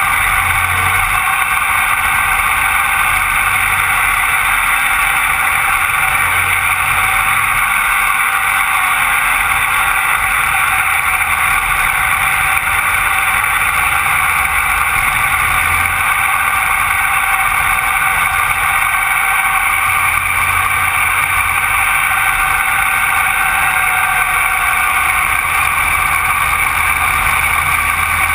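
Rotax Max 125cc two-stroke kart engine running hard at racing speed, heard from on board the kart, with other karts close by. It is a loud, steady drone with no let-up.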